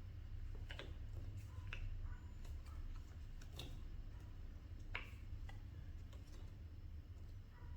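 A handful of light, irregular taps, a second or more apart, over a low steady hum.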